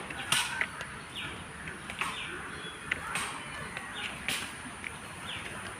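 A bird calling repeatedly in short falling notes, roughly one a second, over a few sharp scuffs of footsteps on a wet road. A thin, steady high tone runs underneath.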